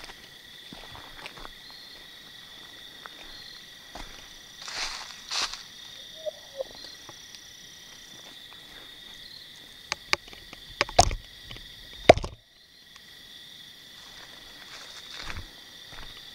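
Steady high-pitched chorus of night insects, with footsteps crunching through dry leaf litter and a few sharp, loud cracks about ten to twelve seconds in.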